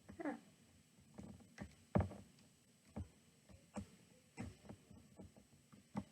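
Hook and rubber bands worked on a plastic bracelet loom: light, irregular clicks and taps about once or twice a second as bands are hooked and pulled over the pegs, the loudest about two seconds in.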